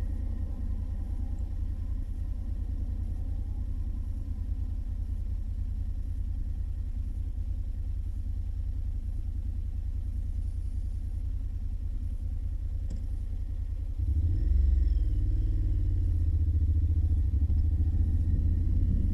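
Honda NC750X's parallel-twin engine, a steady low rumble at low revs that grows louder, with rising engine pitch, as the bike moves off about three-quarters of the way through.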